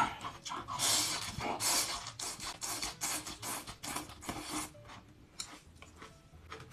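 Close-up chewing of a mouthful of cold-dressed bean sprouts: a run of crisp crunching that thins out after about four and a half seconds.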